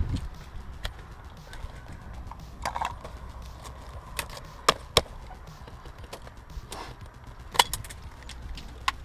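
Airsoft guns firing scattered single shots: sharp cracks at irregular intervals, a handful in all, with a few softer knocks between them.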